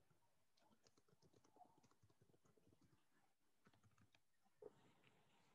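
Near silence: quiet room tone with a few faint soft ticks, the clearest about four and a half seconds in.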